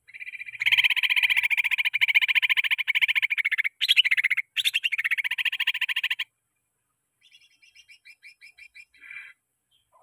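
Greater green leafbird (cucak ijo) singing a long, fast rattling trill of about five seconds, broken twice by short gaps, then a softer run of about ten evenly spaced notes near the end.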